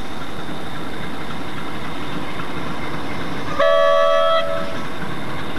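Norfolk Southern diesel freight locomotive approaching with a steady rumble, sounding one short blast of its multi-chime air horn a little past halfway through.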